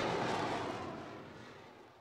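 The tail of a loud rushing, rumbling sound effect dying away steadily over two seconds to silence.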